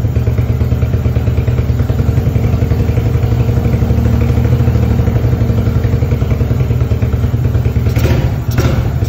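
Suzuki LT4WD 250 QuadRunner's single-cylinder four-stroke engine idling steadily with the idle turned up a little, running pretty good on the correct carburetor. Near the end, two sharp clattering knocks.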